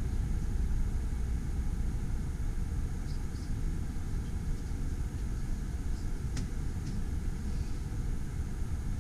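Steady low rumble inside a standing train carriage, with one sharp click about six seconds in.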